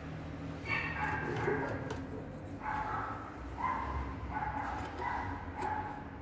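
A dog whining: a string of about six short, high whimpers, one after another, over a faint steady hum.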